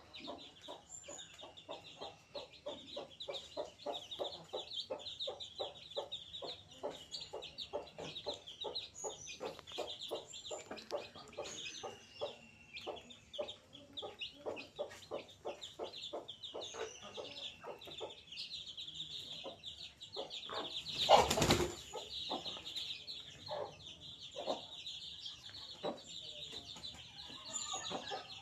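Baby chicks peeping continuously in high, short calls over a busy patter of small ticks and scratches. About three-quarters of the way through there is a single louder rustling bump.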